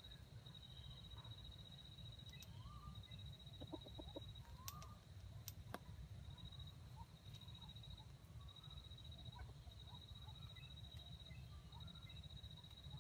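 Faint, soft clucking of a jungle fowl rooster over a steady high-pitched trill, with two sharp clicks about five seconds in.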